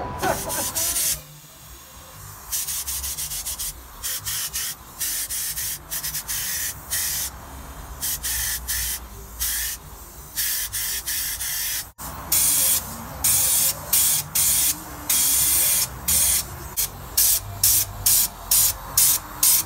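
Gravity-feed compressed-air spray gun hissing in short stop-start bursts as the trigger is pulled and released, spraying paint onto a van's body panels. The bursts come shorter and quicker near the end.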